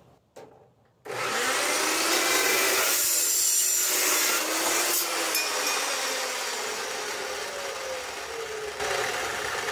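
Metal-cutting chop saw with a toothed blade starting up about a second in and cutting through a long steel bar, loud for a few seconds. After the cut it gets gradually quieter as the blade winds down.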